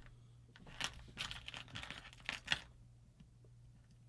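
A quick run of small clicks and rattles as hard parts are handled at a workbench, bunched between about one and two and a half seconds in, over a steady low hum.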